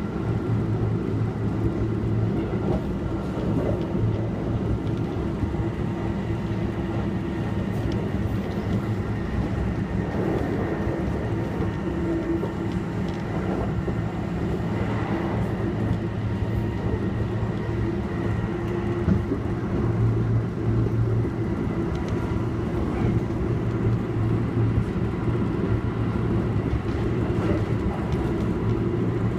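Kintetsu 1233 series electric train running at speed, heard from inside the passenger car: a steady rumble of wheels on the rails, with a constant hum and a few steady tones from its motors.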